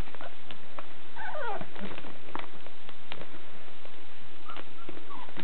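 Young puppies play-fighting, giving a squeal that falls in pitch about a second in and a shorter squeak near the end, over small scuffling clicks.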